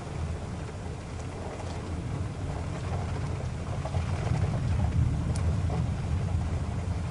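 Car driving on a wet road in the rain: a steady low road and engine rumble that swells a little around the middle, over a hiss of rain with scattered faint ticks.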